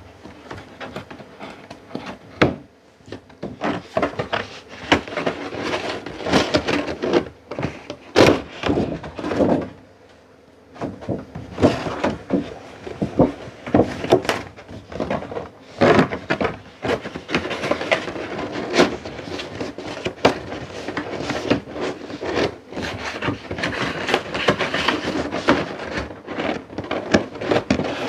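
A large cardboard box being folded shut and wrapped in paper by hand: irregular crackling, crinkling and scraping of cardboard and paper, with a brief lull about ten seconds in.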